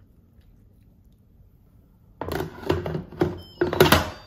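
Instant Pot lid being set on the cooker and twisted shut: after a quiet start, about two seconds of clattering clunks and scrapes of the lid against the pot's rim, loudest near the end.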